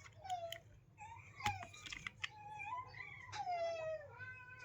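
Repeated high-pitched animal calls, about five short ones, most falling in pitch, with a few sharp clicks between them.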